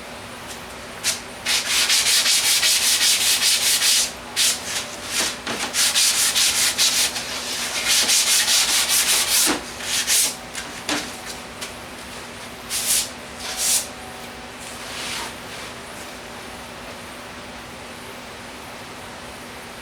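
Sandpaper rubbed back and forth by hand over a wooden board in quick strokes: three longer runs in the first half, then a few short passes.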